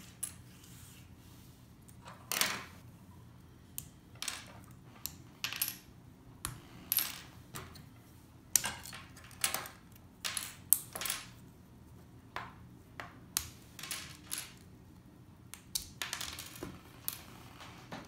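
Plastic LEGO bricks clicking together in the hands and being set down on a wooden floor: irregular sharp clicks and taps, coming thicker near the end.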